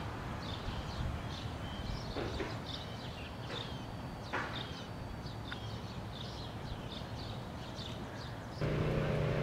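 Small birds chirping repeatedly over quiet outdoor ambience, with a few faint clicks. Near the end a steady low hum cuts in abruptly.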